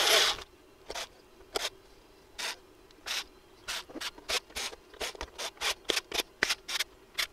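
Hand screwdriver turning replacement screws into the platter motor's bearing housing of a Technics 1210 turntable: a train of short scraping ticks, about one a second at first and about three a second in the second half.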